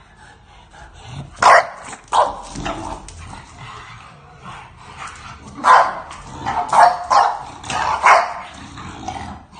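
English bulldogs barking at each other in short sharp barks while squabbling face to face: two barks about a second and a half in, then a quick run of four or five more in the second half.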